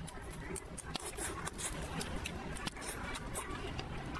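Close-miked chewing of saucy noodles: a run of many short, wet mouth clicks and smacks.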